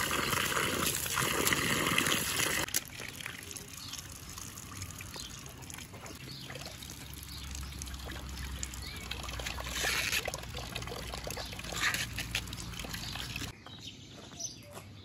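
Water running and splashing, fairly loud for the first few seconds, then dropping to a quieter trickle with scattered small clicks and knocks.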